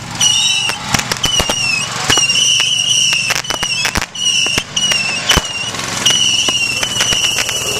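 Fireworks going off: a rapid, irregular series of sharp pops and cracks over a high whistling tone that keeps breaking off and starting again.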